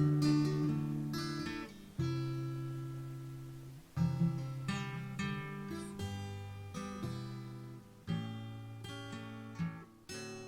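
Background music: acoustic guitar chords strummed about every two seconds and left to ring.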